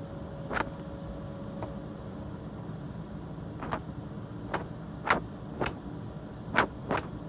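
Steady low room hum with about seven short, sharp clicks or taps at uneven intervals, most of them in the second half.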